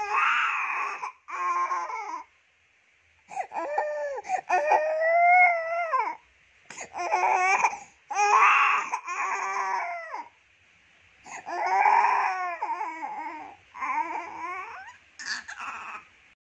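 Baby crying in repeated high-pitched wails of one to three seconds each, with short breaths between them.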